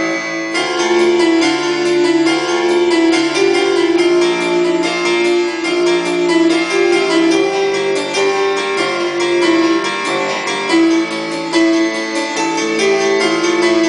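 Electronic keyboard played with both hands: a continuous run of quickly struck notes over sustained lower notes.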